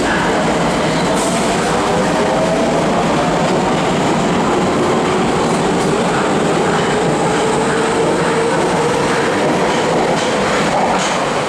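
Nagoya Higashiyama Line 5050-series subway train pulling out and accelerating past the platform. Its traction motors whine in several tones that climb in pitch as it gathers speed, over a steady rumble of wheels on rail.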